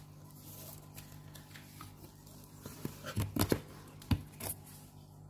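Corrugated cardboard box flaps and an inner packing box being handled and pulled open by hand, with a cluster of scrapes and knocks about three to four and a half seconds in. A steady low hum runs underneath.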